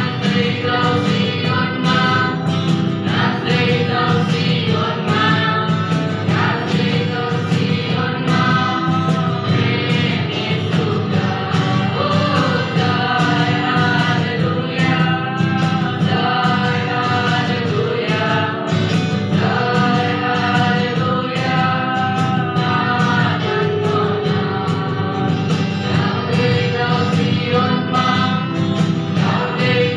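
A small live band: several young voices singing a song together in unison into microphones, accompanied by strummed acoustic guitar, a Yamaha keyboard and cajon percussion keeping a steady beat.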